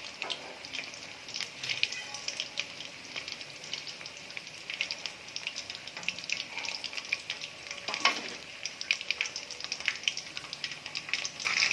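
Batter-coated chicken pieces deep-frying in hot oil: a steady sizzle with frequent sharp crackles and pops, the pieces at the half-cooked stage of a first fry.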